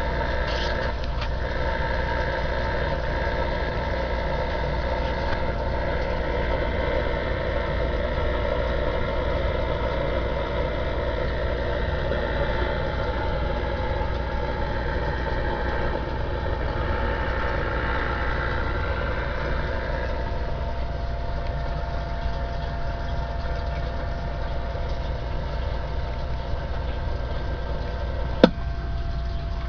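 Vintage DAK Mark IX CB radio on receive, its speaker giving out a steady hiss of static over a low hum, with one sharp click just before the end.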